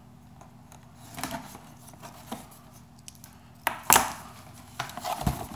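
Tape being worked off a cardboard box: light scrapes and rustles with a few sharp knocks, the loudest two close together about four seconds in.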